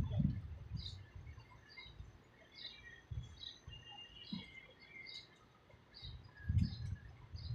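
Small birds chirping in short, quick repeated notes, with the low rumble of street traffic near the start and again near the end.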